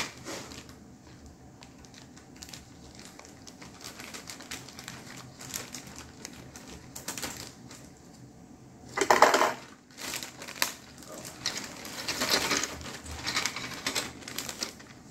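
Plastic wrapper of a model car kit crinkling as it is opened, mixed with light clicks of plastic parts being handled, with a louder rustle about nine seconds in.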